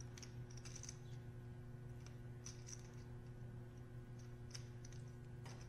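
Faint, scattered clicking of poker chips being handled and tapped together at the table, over a low steady hum.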